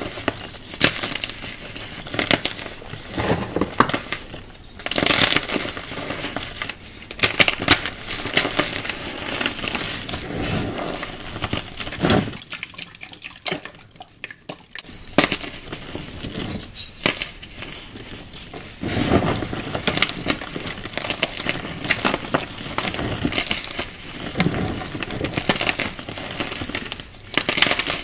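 Chunks of coloured chalk crushed and crumbled in bare hands over a bed of chalk dust: dense, gritty crackling and crunching, the soft fizzing crumble called a foamy sizzle. It drops away for about two seconds near the middle, then resumes.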